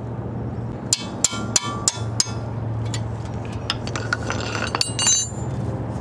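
Hammer tapping a wrench on the 14 mm brake caliper bolt to break it loose: five sharp metallic strikes about three a second, each with a short ring. A few lighter metallic clinks follow near the end.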